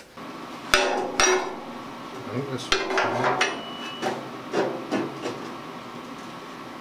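Steel outrigger knocking and clanking against the steel chassis rail as it is handled into position: two loud, ringing clanks about a second in, then several lighter knocks and scrapes.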